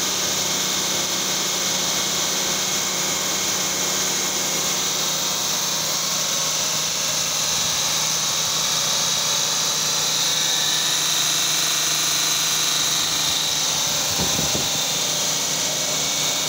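Car engine idling steadily under the open hood, with a steady high hiss over it. The engine is running while catalytic-system cleaner is drawn into the intake through a thin hose, as in a three-way-catalyst cleaning.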